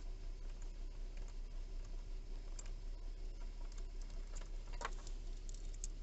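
Light clicks and ticks of a T20 Torx bit turned by hand, backing a screw out of the plastic steering-column trim, with a small cluster near the end as the screw comes out. Under them runs the steady low hum of the idling 3.2 V6 engine.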